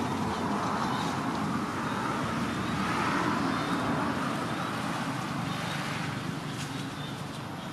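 A motor vehicle passing by, its engine and tyre noise swelling to a peak about three seconds in and then fading.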